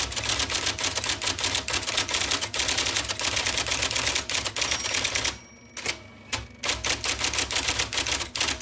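1979 IBM Selectric II electric typewriter typing at speed, its typeball striking the paper in a rapid stream of clicks. About five seconds in the typing breaks off, then a few single strikes follow.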